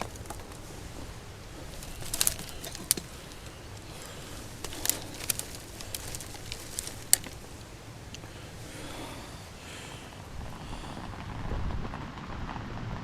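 Campfire burning with a handful of sharp, irregular crackles and pops over a steady background of rain and wind.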